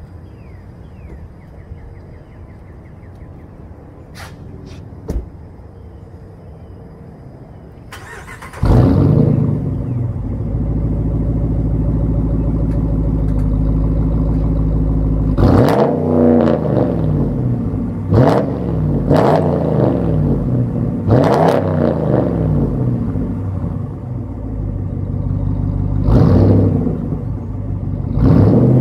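Straight-piped 5.7-litre Hemi V8 of a 2019 Ram 1500 warm-starting: a brief crank, then it catches about eight and a half seconds in with a loud flare and settles into a rough, loud idle. It is then blipped in neutral in about six short revs that rise and fall quickly, the last one near the end.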